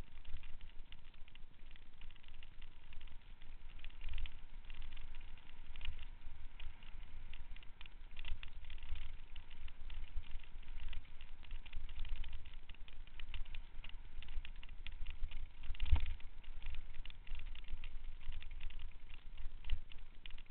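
Mountain bike clattering over a rough dirt trail, heard from a camera riding on the bike or rider: a constant rattle of small clicks and knocks over a low rumble, with one hard jolt about 16 seconds in.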